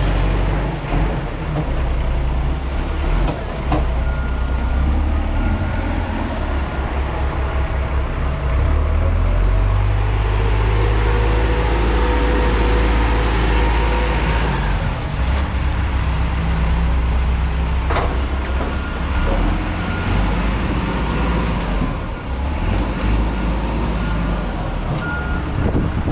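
A heavy vehicle's engine running with a low rumble, while a back-up alarm beeps in short repeated tones for stretches. A single sharp knock comes about two-thirds of the way through.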